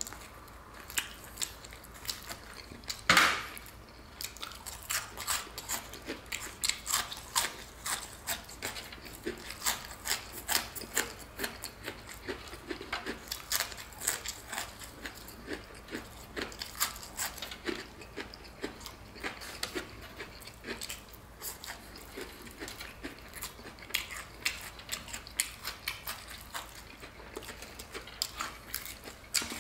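Eating sounds: biting and chewing of crispy-battered deep-fried turkey leg meat gnawed and pulled off the bone, many short mouth sounds. One louder, sharper sound comes about three seconds in.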